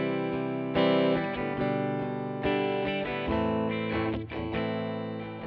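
Background music led by an electric guitar with an effects-processed tone, a new note or chord struck every half second to a second.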